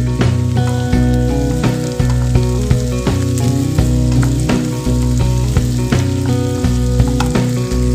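Sliced onions and green chillies sizzling in hot oil in a nonstick pan, crackling steadily while a spatula stirs them, with background music playing along.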